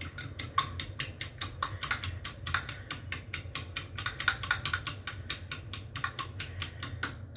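Fork beating raw eggs in a small ceramic bowl: a rapid, even clicking of the fork against the bowl, about five or six strokes a second, stopping just before the end.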